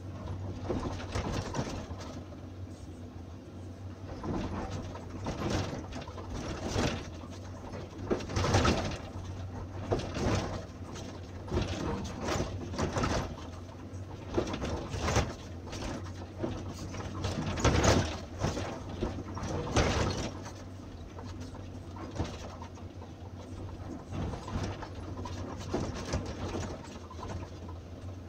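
Caterpillar hydraulic excavator's diesel engine running steadily, heard from inside the cab, while the bucket teeth scrape and crunch through loose limestone in irregular bursts, loudest about eight seconds in and again near eighteen seconds.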